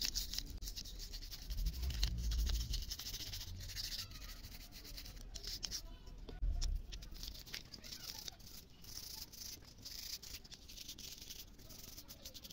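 A toothbrush scrubbing over a small circuit board in repeated scratchy strokes, with gaps between them. Low wind rumble on the microphone in the first few seconds.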